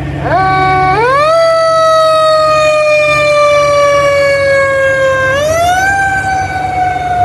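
Fire engine siren starting up as the truck pulls out: a wail that climbs within the first second and a half, slides slowly down, then rises again about five seconds in and falls away slowly, over the truck's steady low engine running.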